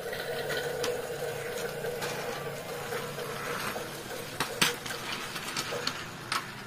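Small toy mechanism whirring steadily with a faint pulsing hum, with a few sharp clicks and knocks of plastic toys being handled, the loudest about four and a half seconds in.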